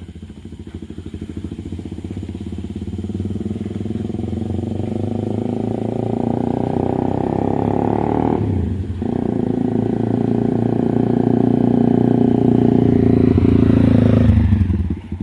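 Honda CBR300R single-cylinder engine accelerating under a rider, its pitch and loudness climbing steadily, with one gear change about eight and a half seconds in before it climbs again and drops off near the end. The bike is on a test ride after a repair for bogging and stalling.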